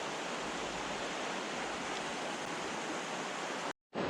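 Steady rushing of mountain river rapids. The sound drops out completely for a moment near the end, then the rush resumes.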